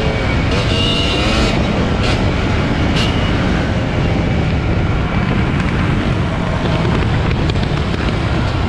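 Motorcycle engine running under way, mostly buried under loud, steady wind noise on the microphone; the engine pitch shifts a little in the first two seconds.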